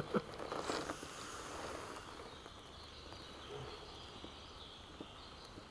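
Quiet outdoor ambience over calm water: a few small clicks and taps in the first second from handling in the kayak, then a faint steady hiss with a faint, wavering high sound in the background.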